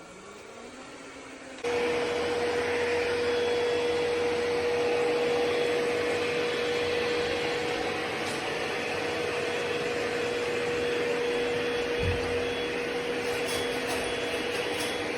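Ecovacs Deebot X9 Pro Omni robot vacuum and mop running: a steady whirring rush with a constant whine, which switches on abruptly at full strength about two seconds in after a faint spin-up.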